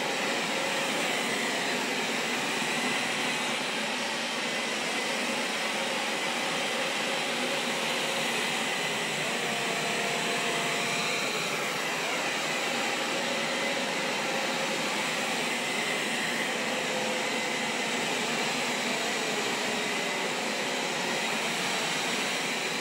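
A motor-driven household appliance running steadily with a rushing, airy noise that does not change.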